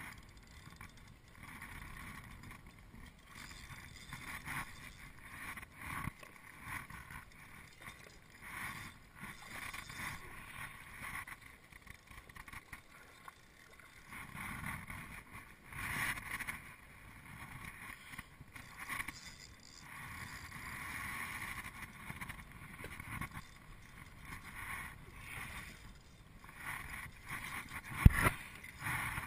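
Kayak paddle strokes, the blades dipping and splashing in the water every second or two, with one sharp knock near the end.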